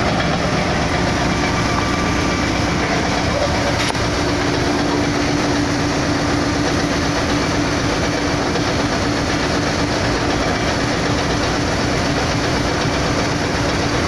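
Steady, loud mechanical running noise from nearby machinery, with a low hum coming in about four seconds in.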